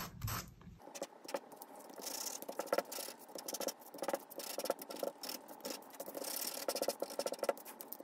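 Fine-grit sanding disc rubbed gently back and forth over a thin paper die cut, a quick, irregular run of light scratchy strokes.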